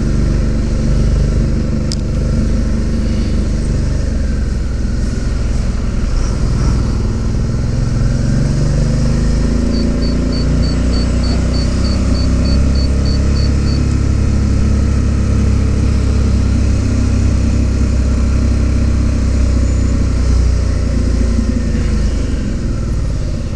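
Suzuki V-Strom DL650's V-twin engine running at low speed, its pitch rising and falling with the throttle as the bike moves slowly through traffic.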